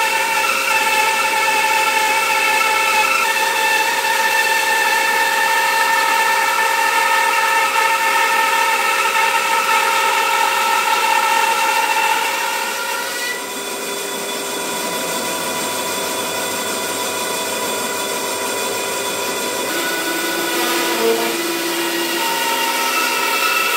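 Band saw running and cutting through a walnut log: a steady motor and blade whine over the hiss of cutting. Its tone and level drop a little about halfway through as the cut changes.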